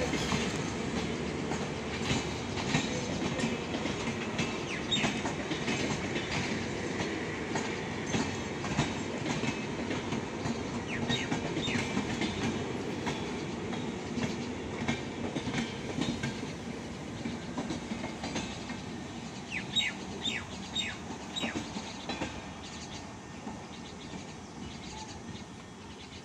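LHB passenger coaches of an arriving train rolling past slowly, with steady wheel rumble and clicking over the rail joints and short high squeaks from the wheels now and then. The sound fades near the end as the last coach moves away.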